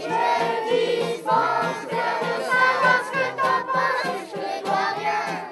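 A group of children singing a chorus together, several voices at once, over music with a steady low accompaniment.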